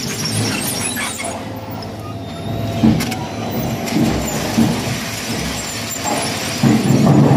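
Concrete block production line machinery running while a pallet of freshly moulded blocks is carried on a chain conveyor: a steady mechanical rumble with a few short knocks and a louder stretch near the end.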